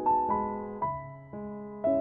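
Background music: a slow, soft keyboard melody, one piano-like note struck about every half second and left to fade.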